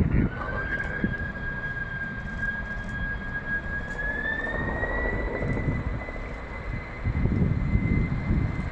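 Qantas Boeing 747-400 on its takeoff roll, its four Rolls-Royce RB211 turbofans at high power: a steady jet roar under a high whine that rises in pitch about four seconds in. The low rumble grows louder near the end.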